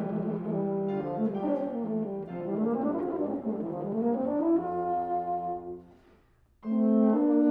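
Two euphoniums playing: quick runs going up and down, then a held chord that dies away about six seconds in, a brief silence, and a loud new entry near the end.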